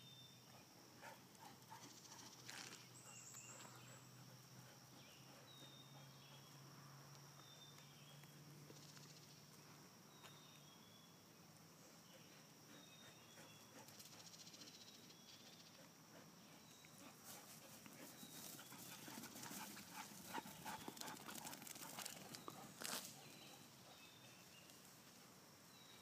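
Near silence: faint outdoor ambience, with a short high chirp repeating every second or two and a faint low hum that fades out about ten seconds in. Light clicks and taps come in a cluster about two-thirds of the way through.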